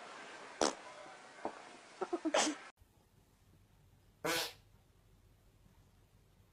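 Short, sharp cat noises: a calico cat gives a couple of sudden hiss-like bursts, then a quick run of three or four calls about two seconds in. After an abrupt cut, another cat makes one short, noisy burst about a second and a half later.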